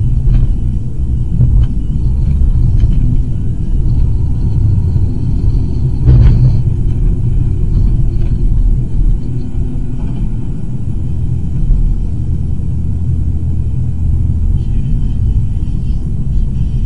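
Steady low road and engine rumble inside a moving car, picked up by a dashcam, with one brief louder thud about six seconds in.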